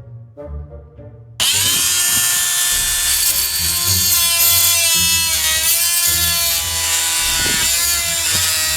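Oscillating multi-tool saw switching on suddenly about a second and a half in and running steadily as it cuts wood: a loud, high, buzzing whine whose pitch dips and wavers now and then under load. Quieter background music plays before it starts and under it.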